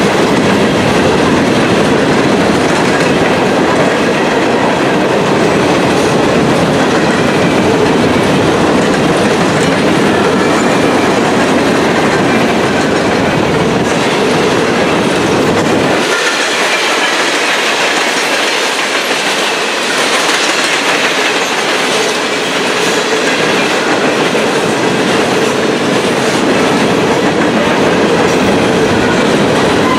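Freight train cars rolling past close by: a loud, steady rumble with the clickety-clack of wheels over rail joints. The deep low rumble drops away about halfway through.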